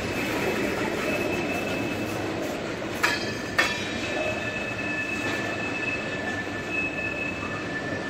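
Freight cars (covered hoppers) rolling slowly on curving yard track, the wheels squealing with two steady high tones over the rumble of the wheels. Two sharp clacks about half a second apart, some three seconds in.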